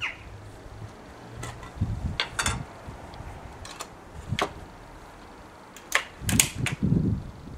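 Scattered clicks and knocks of an air rifle being handled and loaded, with fingers in a tin of pellets. A cluster of heavier knocks comes about six to seven seconds in as the rifle is lifted.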